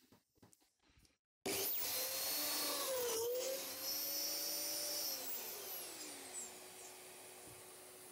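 Mafell DD40 dowel drilling machine switched on about a second and a half in, its twin bits plunging into the pine panel to bore dowel holes, then switched off and winding down with a falling whine, the vacuum dust extractor on its hose running with it.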